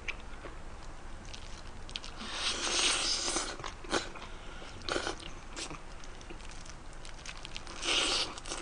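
A person eating spicy swimming crab with noodles close to the microphone: chewing and crunching, with a few sharp clicks and two longer hissing slurps, one about two seconds in and one near the end, as noodles and crab are sucked in.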